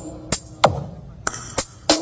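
Electronic dance beat played loud through a mobile loudspeaker sound system at a sound check: punchy kick drums that drop in pitch, with sharp snare or clap hits, several hits a second.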